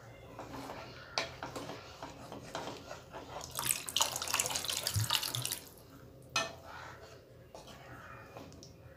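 Water poured from a mixer jar into a steel pan of curry gravy, splashing into the liquid, heaviest about halfway through, to thin the gravy. A couple of sharp knocks against the pan.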